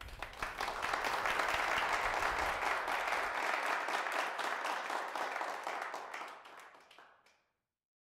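Audience applauding, a dense patter of many hands clapping that fades away about seven seconds in.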